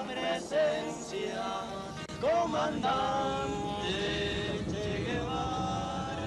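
Background music with a male voice singing slow, held notes.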